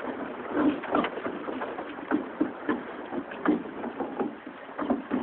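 A boat on the water: irregular hollow knocks and lapping against the hull, a few to the second.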